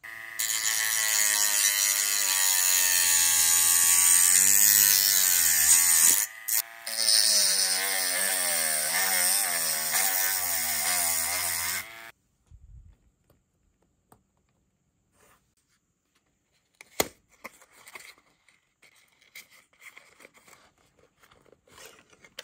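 Small handheld rotary tool spinning a sanding drum against the plastic of a model car body's wheel arch: a high motor whine whose pitch wavers as the drum bears on the plastic, dropping out briefly about six seconds in and stopping about twelve seconds in. After that, only faint handling clicks and rustles, with one sharper click partway through.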